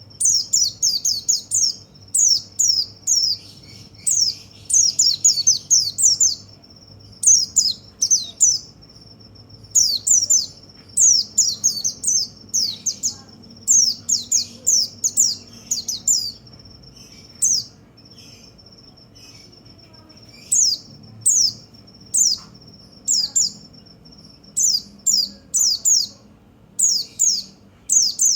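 White-eye (pleci) song: rapid, high chirping phrases made of quick descending notes, in bursts separated by short pauses. A thin steady high tone runs underneath.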